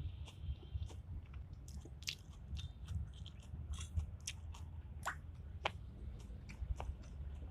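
A person chewing food close to the microphone: wet mouth sounds with many short, irregular clicks and crunches.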